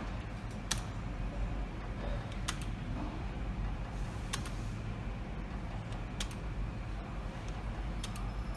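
Merkur Triple Chance slot machine clicking once about every two seconds as spin follows spin, over a steady low hum.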